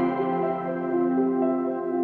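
Soft, slow ambient background music of long held tones, with notes changing gently.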